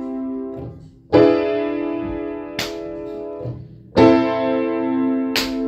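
Piano accompaniment between sung lines: one chord fades out, then new chords are struck about a second in and again about four seconds in, each held and ringing. A short hiss sounds shortly before each new chord.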